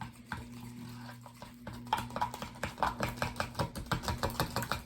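Sticky homemade glue slime being squished and worked, making a fast run of wet, crackly clicks, about five a second, starting a couple of seconds in. The slime is tacky from too much glue.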